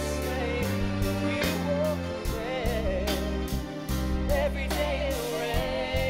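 Live pop-soul song: a lead singer's voice sliding through melodic runs over a band with sustained bass and chords and a steady drum beat.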